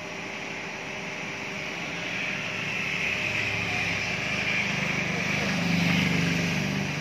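A motor vehicle passing on the road: its engine hum grows louder to a peak about six seconds in, then fades.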